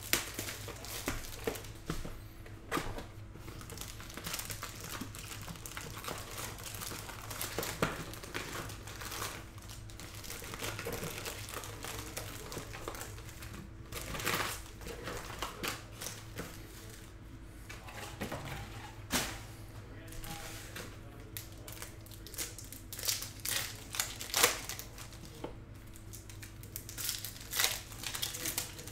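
Foil wrappers of Topps Chrome baseball card packs crinkling and tearing as the packs are pulled from the box and ripped open by hand, with irregular crackles and sharp rips throughout. Cards are handled between rips.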